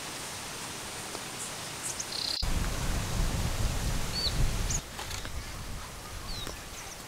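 Outdoor rural ambience: a steady hiss with a few short bird chirps, and a low rumble from about two and a half seconds in to nearly five seconds in.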